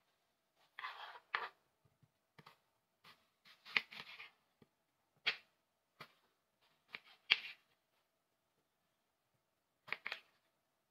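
Knife cutting through a firm yellow apple on a bamboo mat: a series of short, crisp crunches as the blade slices and the pieces come apart, irregularly spaced. A faint steady hum runs underneath.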